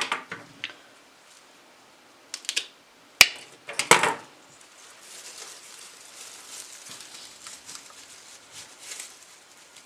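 Handling sounds of cut flowers and tools on a wooden table: a few sharp clicks and taps, the loudest about three seconds in, then a soft, continuous rustle of leaves and stems as a wired gerbera is worked into the arrangement.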